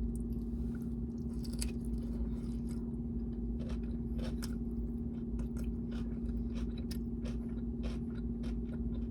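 Close-up chewing and mouth sounds of someone eating a chorizo taco: soft, wet clicks and smacks, over a steady low hum.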